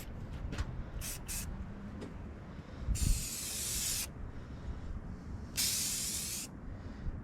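Two bursts of spray hiss, each about a second long, from cleaning a car's aluminium valve cover. A few light clicks come first, and a dull knock marks the start of the first burst.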